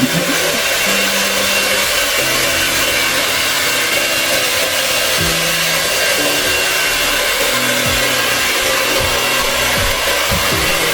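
Hair dryer blowing steadily, used to melt ice built up in a fridge's freezer compartment.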